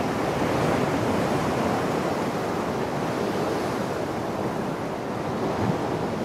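Ocean surf breaking and washing among shoreline rocks: a steady rush of white water.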